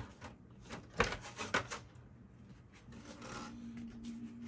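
Clear plastic blister packaging being handled and rubbed, with a cluster of sharp crinkles and clicks about a second in, then softer rustling.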